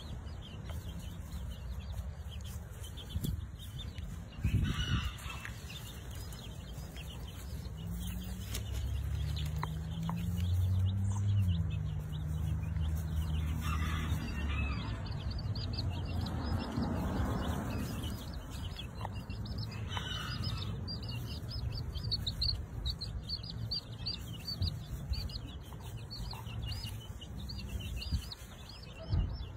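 Baby chicks peeping without a break, a constant run of short high-pitched cheeps with a few louder calls. A low droning hum runs under them for several seconds about a third of the way in.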